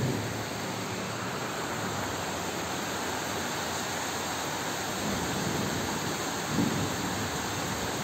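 Heavy tropical rain falling steadily, a constant hiss. Two brief low thumps stand out, one right at the start and a louder one about six and a half seconds in.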